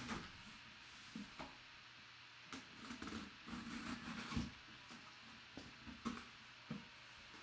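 Small box cutter slicing the packing-tape seal along a cardboard box's seam: faint scraping and clicking as the blade runs along the tape, with cardboard rustling and a soft knock about four seconds in as the box is handled.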